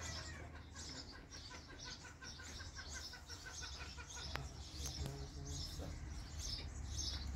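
Small birds chirping over and over, with a quick run of evenly spaced short notes in the first few seconds. A steady low hum runs beneath, and two sharp clicks come about four and five seconds in.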